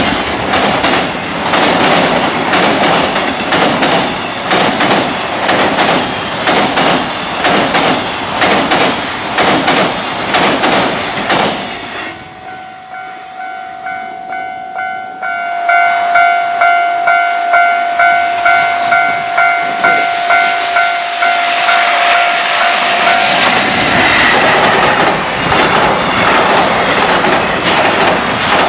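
Container freight train wagons clattering rhythmically over rail joints as the train runs past, ending about 12 seconds in. A steady high tone with pulsing overtones follows, then a second freight train comes in, its wheels clacking over the joints about twice a second before running past loudly near the end.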